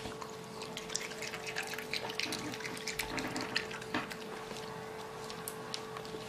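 Raccoon chewing grapes: quick wet smacking and squishing clicks, irregular and close together, over a faint steady hum.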